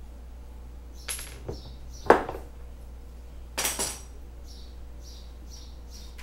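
Metal tools or cabinet hardware being handled, clinking and knocking: two light knocks about a second in, a louder knock about two seconds in, and a short cluster of ringing clinks a little later.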